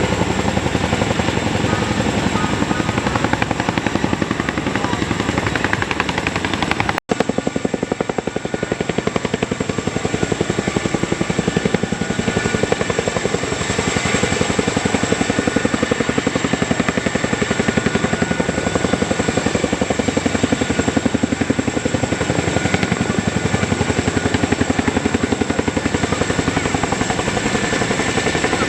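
Boeing CH-47 Chinook tandem-rotor helicopter flying low, its rotors beating in a steady, rapid chop with a high steady whine above them. The sound cuts out for an instant about seven seconds in, then carries on unchanged.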